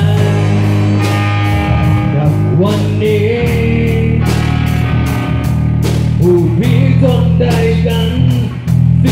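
Rock band rehearsing an instrumental passage: electric guitars over a heavy low end and drums, with a winding melodic guitar line in the middle and regular cymbal hits.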